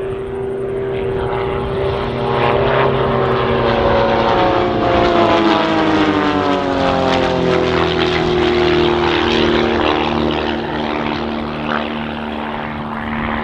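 Piston engines and propellers of two aerobatic biplanes flying in formation, a loud steady drone. About halfway through the pitch falls as they pass, then it holds level.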